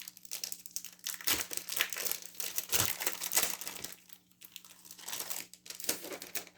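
Packaging crinkling and rustling as it is pulled open and handled by hand, busiest from about a second in to four seconds, with another flurry near the end.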